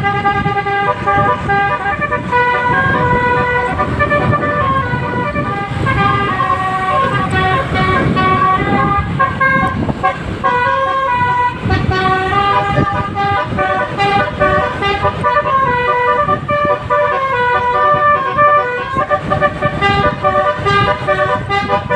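Basuri telolet bus horn playing a tune of held notes that change in steps, over a rumbling noise beneath.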